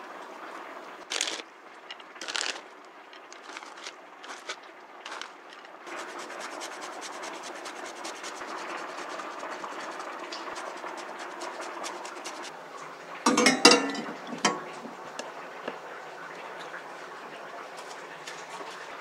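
Cheese being sprinkled by hand onto eggplant lasagna in a glass baking dish. A few separate light taps come first, then a run of fine pattering from grated grana padano, and a louder clatter about two-thirds of the way through.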